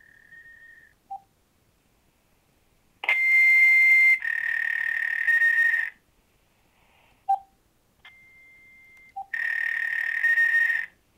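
Repeating machine-generated telephone tones in a voicemail message. A steady high tone steps down in pitch, short low blips sound, and two loud bursts of hiss carry the same high tone stepping down inside them, the cycle coming round about every six seconds. The caller's source and meaning are unknown.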